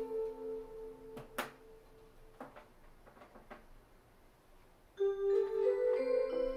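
Seiko RE564H melody wall clock playing its built-in tunes in bell-like electronic tones. One melody stops about a second in with a sharp click, a few light clicks follow in the quiet, and about five seconds in the next tune starts suddenly.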